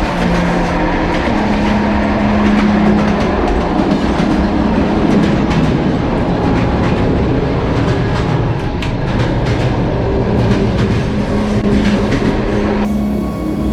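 Sleeper train running on the rails: a steady, loud rumble with a low hum and many sharp clicks from the wheels over the track.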